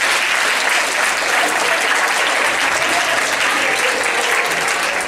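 Audience applauding, a dense and steady round of clapping.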